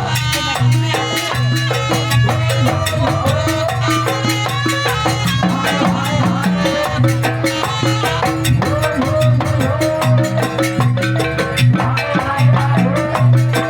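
Live Banyuwangi jaranan music: drums and gamelan-style pitched percussion playing a dense stream of rapid strokes over a steady low tone, with a shifting melody on top.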